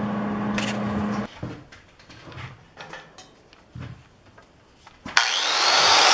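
A steady machine hum with a low tone cuts off about a second in, followed by a few light knocks of handling. Near the end an electric angle grinder switches on and spins up freely, a loud rush with a rising whine.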